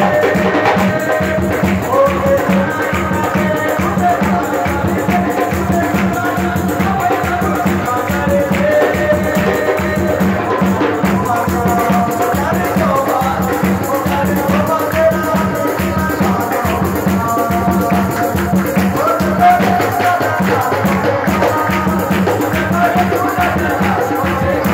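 Men singing a Punjabi Christian hymn (masihi geet) into microphones, over fast, steady rhythmic percussion and hand-clapping.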